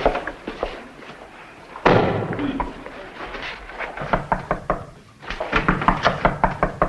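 Film soundtrack of a crowd moving on a wooden floor: footsteps and knocks of furniture, with one loud bang about two seconds in and a quick run of clicking steps near the end.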